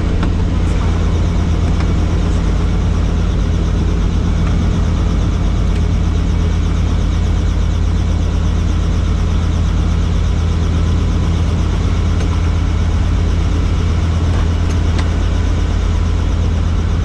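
Helicopter engine and rotor running steadily, a constant loud low drone with no change in pitch.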